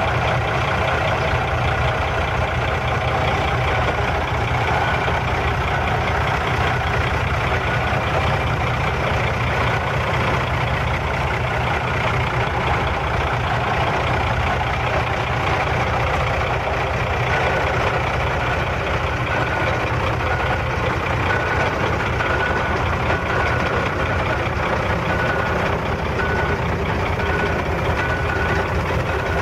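Heavy truck's diesel engine idling steadily. From about halfway through, a short high beep repeats about once a second.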